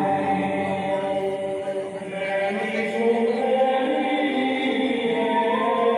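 Devotional chanting by several voices in long held notes, with music beneath.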